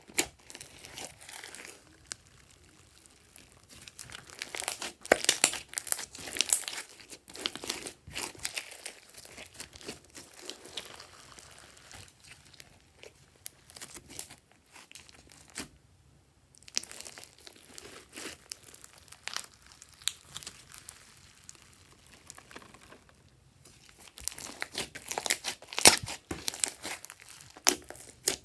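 Hands squeezing, stretching and folding a large mass of glossy pink slime: a stream of irregular crackling clicks and sticky pops, busiest about five seconds in and again near the end, with quieter spells between.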